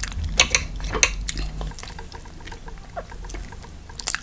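Eating at the table: a few sharp clicks of chopsticks against plates and the pan as a piece of Korean fried chicken is picked up, then a bite into a fried chicken wing near the end.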